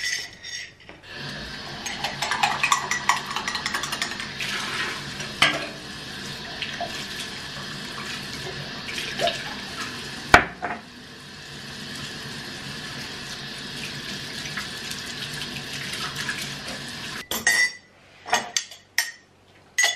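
Kitchen tap running into a stainless-steel sink while a ceramic mug is rinsed, with a few clinks and one sharp knock of the mug against the sink. The water stops about three seconds before the end, and a few short knocks follow.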